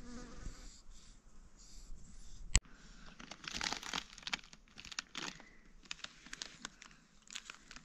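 Foil snack packet crinkling as it is handled and torn open by hand, in many short crackles, with a single sharp click about two and a half seconds in.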